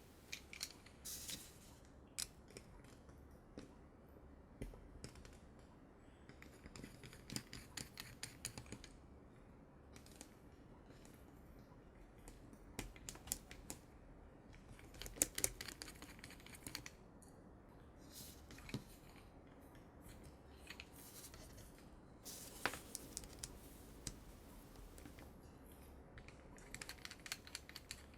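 Scattered light clicks and short scrapes of small metal and plastic parts being handled, as when working on the mechanism of a Macintosh Plus floppy drive. They come in irregular clusters, with the sharpest clicks around the middle.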